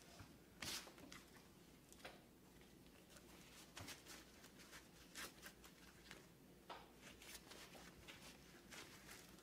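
Faint rustling, scuffing and soft snaps of cloth work gloves being pulled on and tugged over the hands, in short irregular bursts, the loudest scuff about a second in.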